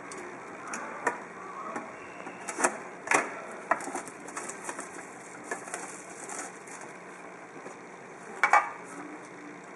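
Clear plastic shrink-wrap being torn and peeled off a boxed trading-card tin, crinkling in irregular snaps, with the box clicking and tapping as it is handled. Near the end come two sharp clicks close together.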